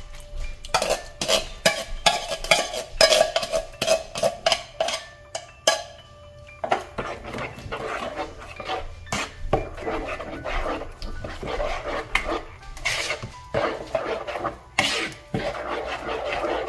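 Kitchen utensil clinking and scraping against a container in quick, irregular strokes while canned pineapple is added to carrot cake batter.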